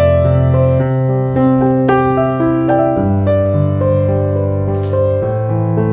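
Background piano music: a melody of single notes over held bass notes that change every couple of seconds.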